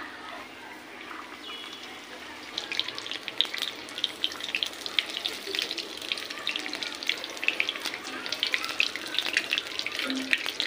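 Eggplant slices in gram-flour batter (beguni) deep-frying in hot oil in an iron kadai: a steady sizzle that becomes louder and thick with crackling and spitting about two and a half seconds in, as more pieces fry.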